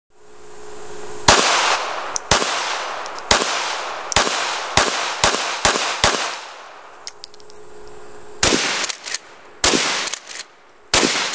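Gunshots, about sixteen sharp cracks, each trailing off in a long echo. The first eight come about half a second to a second apart, then after a gap of about two seconds the shots come faster, in pairs and threes.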